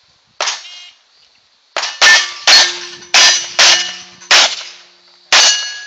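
Handgun shots fired in a quick string of about six or seven, starting about two seconds in, with steel plate targets ringing after the hits. A single sharp report comes about half a second in.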